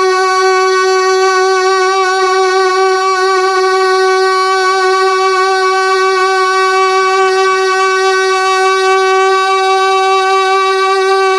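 A woman's singing voice holding one long, steady note while drawing out a line of a ghazal in tarannum style.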